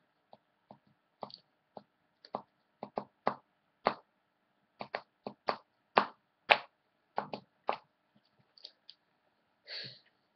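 A run of short, sharp clicks and taps at irregular spacing, a few each second, thinning out after about eight seconds, over a faint steady hum.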